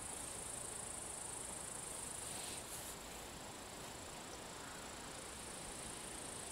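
Crickets chirring steadily: an unbroken high-pitched buzz.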